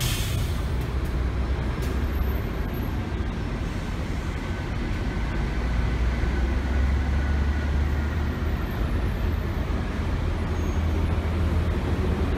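Diesel city bus engine rumbling low as the bus drives slowly into a terminal stop and draws up, over steady traffic noise.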